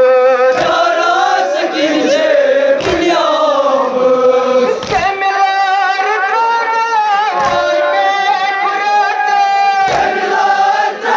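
A group of voices chanting a Kashmiri noha, a Muharram lament, in unison with long held notes. A low thump cuts through about every two seconds.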